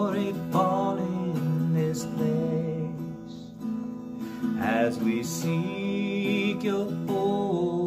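A man singing a worship song, accompanying himself strumming an acoustic guitar.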